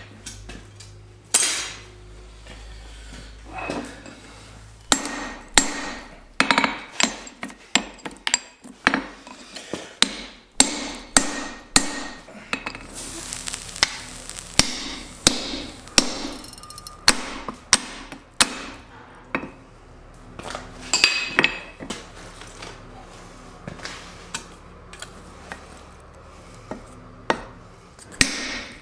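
Hand hammer striking a punch driven into a glowing steel block on an anvil, punching a hole while forging a blacksmith's hot cut chisel. Repeated sharp metallic blows, each with a short ring: a few scattered blows at first, then a steady run of about one to two a second that thins out for a few seconds near the end.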